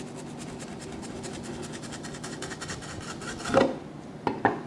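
A cleaver blade scraping and slicing along the rough skin of a spiny dogfish belly as the skin is cut away from the meat, a steady fast raspy scratching. Near the end, a louder clunk and two quick sharp knocks.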